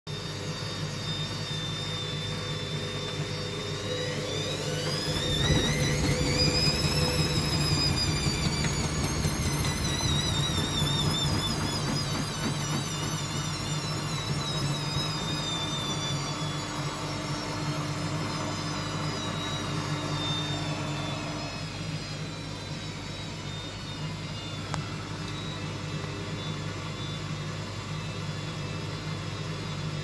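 Hoover front-loading washing machine spinning an unbalanced load on its 700 rpm intermediate spin. Over a steady low hum, the motor whine climbs in pitch, wavering, from about four to seven seconds in. It then slowly falls away over the next dozen seconds as the drum winds down.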